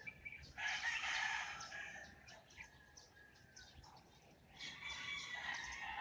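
A rooster crowing about half a second in, and crowing again near the end, with small birds chirping in between.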